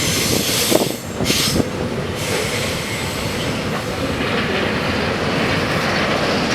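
Train passing close by: steady rumble and clatter of wheels on the rails, with high-pitched wheel squeal at the start and again about a second in.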